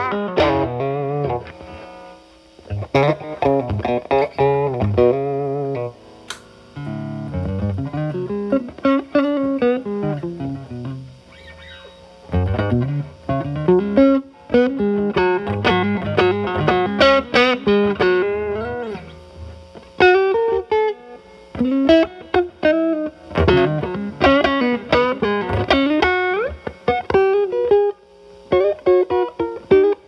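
Fender Telecaster with single-coil alnico pickups played through a Moollon compressor pedal, used as a gain boost, into a Marshall Valvestate amp's overdriven channel. It plays single-note lead phrases with string bends, separated by short pauses.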